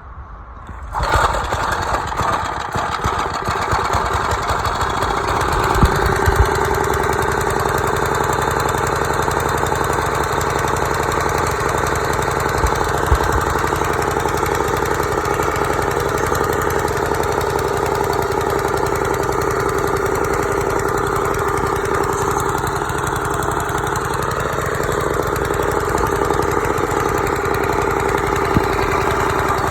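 Tru-Cut reel mower's 3 hp Briggs & Stratton engine starting cold on choke about a second in, then running steadily at idle with the reel blade not yet engaged.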